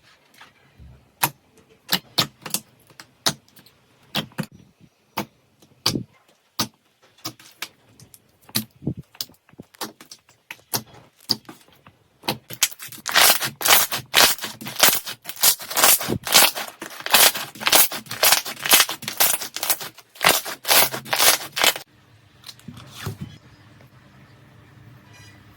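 Iceberg slime's hardened crust crackling as it is pressed and broken up. Scattered crisp crackles at first, then about halfway through a dense, loud run of crackling for around ten seconds, which dies down near the end.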